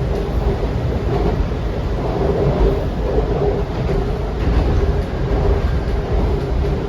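Washington Metro train running, heard from inside the car: a steady low rumble, joined about two seconds in by a wavering whine.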